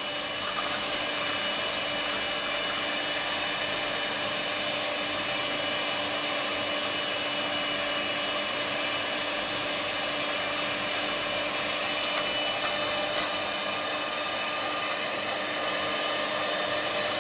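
Handheld electric mixer running steadily with an even motor whine, its beater whipping matcha powder, sugar and hot water into dalgona foam in a glass. A few short clicks about twelve seconds in.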